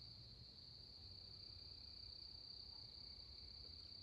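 Faint, steady chorus of night insects such as crickets: one continuous high-pitched trill with no breaks.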